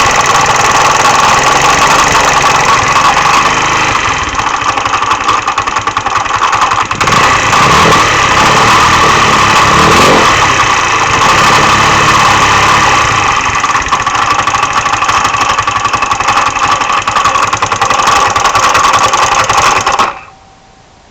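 GY6 150cc single-cylinder four-stroke scooter engine running with a clatter or knock from inside the engine; the owner has ruled out the clutch, variator and belt, and the engine shows no loss of performance. Its speed rises and falls a couple of times around the middle, and it shuts off near the end.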